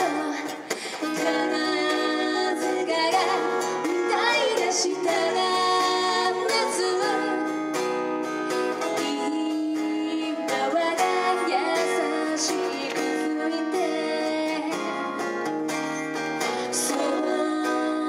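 Live performance of a pop song: sung vocals over plucked guitar accompaniment.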